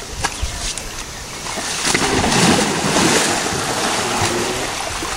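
Water splashing and churning as a young Asian elephant slides into a shallow stream and wallows, growing louder about two seconds in.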